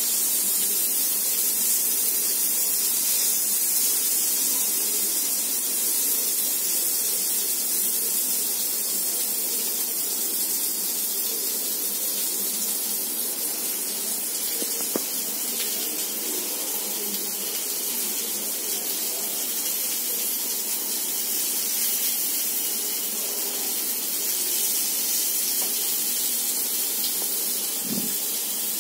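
Paneer tikka skewers sizzling on a hot tawa over a gas burner: a steady hiss that holds the same level throughout.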